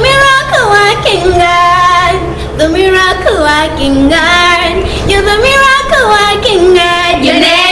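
A group of four girls singing together in unison, holding long notes and sliding in pitch between them.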